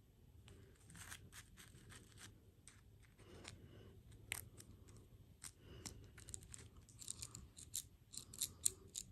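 Irregular crisp clicks and crackles from close-up eating or handling of candy and desserts. They grow denser and louder over the last couple of seconds.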